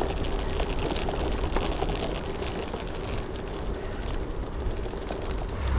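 Wind buffeting an action camera's microphone while riding a bicycle, with steady road and tyre noise underneath.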